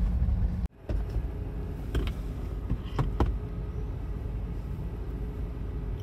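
Steady low rumble of a camper van's engine and road noise heard inside the cabin, cut off abruptly under a second in by an edit and then picking up again, with a few faint brief clicks.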